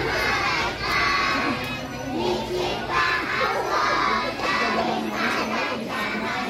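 A crowd of young kindergarten children shouting and chattering all at once, many high voices overlapping without a break.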